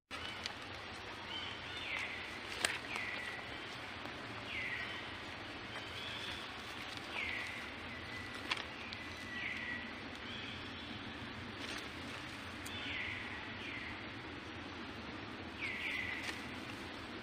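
Outdoor ambience with a bird calling over and over: about ten short chirps, each sliding down in pitch, spaced a second or two apart. Two sharp clicks stand out, one near the start and one about halfway through.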